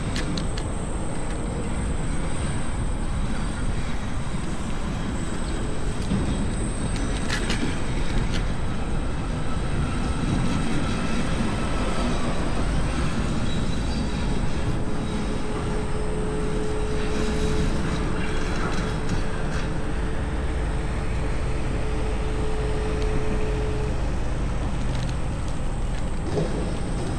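Electric scooter riding along a street: steady wind rush over the microphone with tyre and road rumble underneath. A faint steady whine holds one pitch for about ten seconds in the middle.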